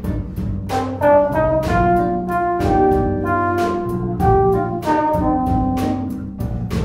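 Jazz band playing live, with a trombone prominent in held notes over drum-kit cymbal strokes about twice a second, bass guitar and electric guitars.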